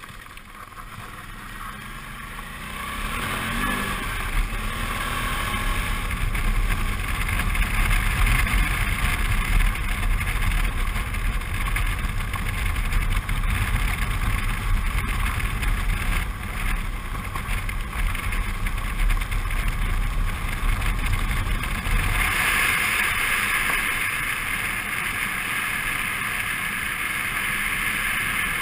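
Suzuki V-Strom 650's V-twin engine running as the bike rides along a dirt trail, its note building over the first few seconds, with a rushing noise on top. About three quarters of the way in the low engine sound drops back and the higher rushing noise grows.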